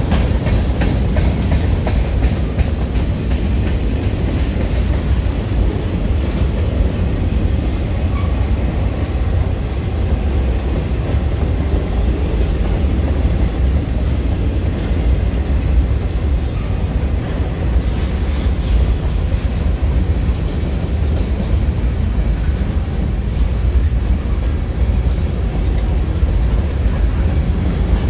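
Norfolk Southern manifest freight train rolling past, a loud steady low rumble with wheels clicking over rail joints.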